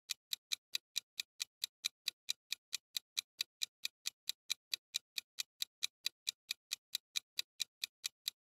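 Clock-ticking sound effect for a quiz countdown timer: short, sharp, evenly spaced ticks, about four a second, running steadily as the timer counts down.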